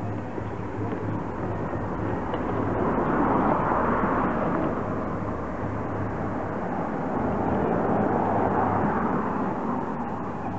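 Street traffic passing: a steady rush of road noise that swells twice, about four seconds in and again about eight seconds in.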